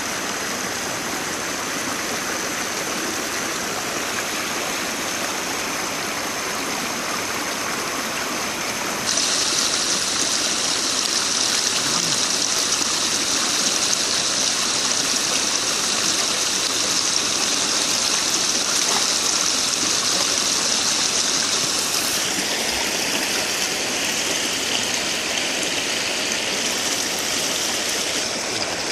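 Stream water rushing steadily over a low log-and-brush weir in a white rapid. The rush turns abruptly louder about nine seconds in.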